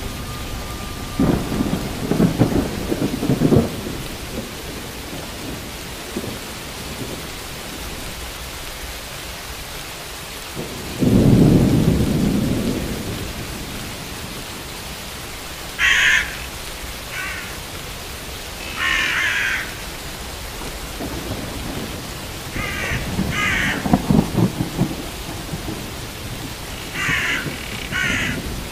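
Steady rain with three low rolls of thunder, the loudest about eleven seconds in. From the middle on, a bird calls in short bursts several times.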